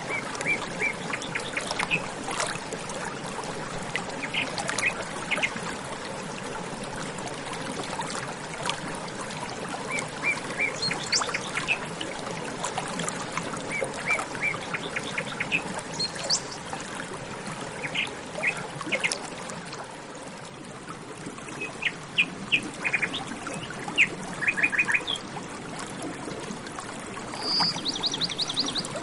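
Steady running water with small birds chirping over it in quick series of short high notes, heard again and again through the stretch, with a brisk, higher trill near the end.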